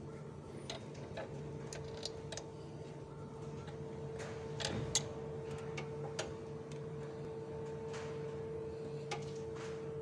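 Ratchet wrench clicking in short, irregular runs as the throttle body's bolts are tightened, over a steady low hum.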